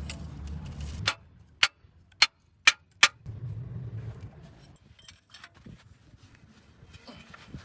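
Five sharp metal-on-metal strikes about half a second apart, some leaving a brief high ring, like a hammer striking steel during leaf spring work, with a low rumble of workshop noise before and after.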